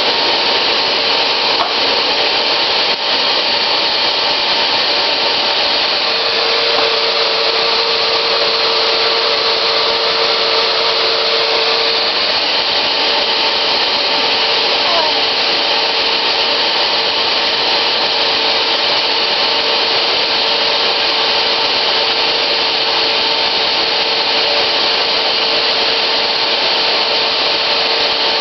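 Vacuum cleaner running steadily: an even rushing hiss with a steady whine underneath.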